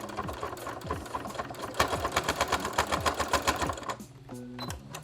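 Electric sewing machine stitching through denim, its needle clattering in a fast, even rhythm that speeds up and grows louder midway, then stops about four seconds in.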